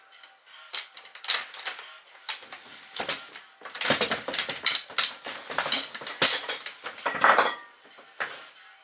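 Irregular knocks and metallic clinks from a wooden Kermit-style camp chair being assembled, as its frame parts and metal fittings are handled. The clatter is busiest in the middle.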